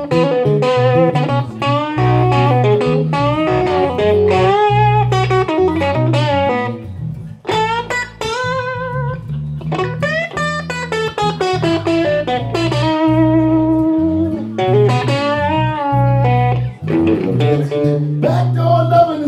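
Electric guitar solo in a blues-rock style, its notes bent and shaken with vibrato, over a steady electric bass line from a guitar-and-bass duo playing live.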